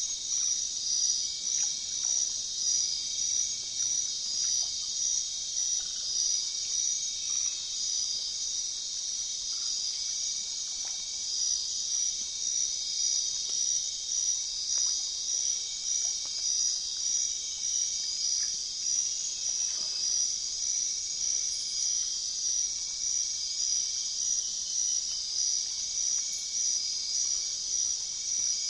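Insect chorus: a steady high-pitched buzzing that pulses evenly, about once a second, with faint short chirps mixed in.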